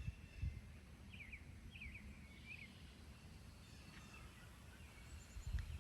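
A few faint bird chirps, short high calls about a second and two seconds in, over a steady low outdoor rumble.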